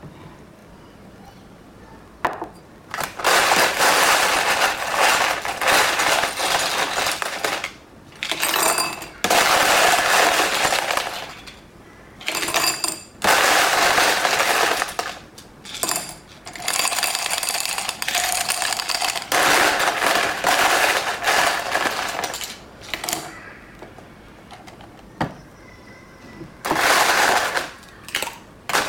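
Ice rattling in a cocktail shaker as it is shaken, in several spells of a few seconds each with short pauses between.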